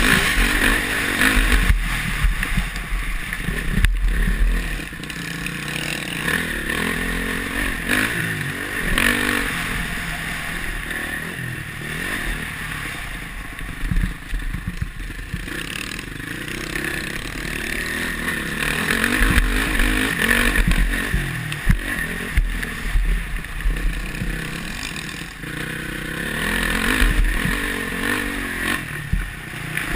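Honda CRF450R's single-cylinder four-stroke engine revving up and down with the throttle as the motocross bike is ridden over a dirt track, heard from a helmet camera with heavy wind rumble.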